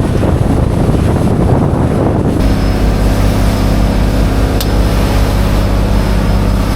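An engine running steadily with wind noise. About two and a half seconds in, the sound changes abruptly to a steadier, deeper engine hum.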